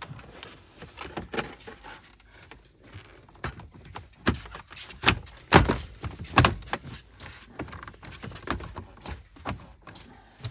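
Hard plastic knocks and clicks as a Renault Master 3's climate-control panel is handled and pressed back into its dashboard opening, with the loudest knocks about five and six and a half seconds in.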